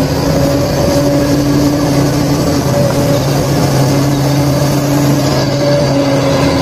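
Steady engine-like drone: a low hum with overtones and a noisy rumble that dips briefly now and then.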